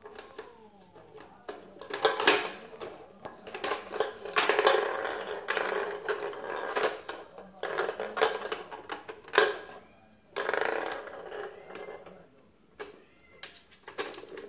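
Plastic balls rattling and rolling around the enclosed track of a circular cat toy as kittens bat at them: irregular clicking and clattering that comes and goes in spells.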